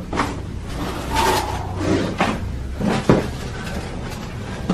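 A spinal joint cracking under a chiropractic adjustment: one sharp crack about three seconds in, among several shorter, softer noisy handling sounds.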